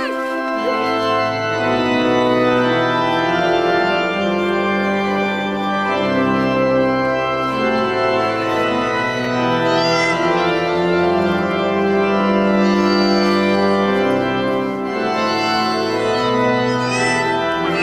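Church organ playing sustained chords that change every second or two.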